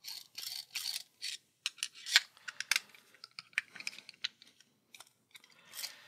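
Small Phillips screwdriver turning in the screws of a steel shipping-container lock face, the bit scraping and clicking against the screw heads and metal: a run of short, irregular scrapes and ticks.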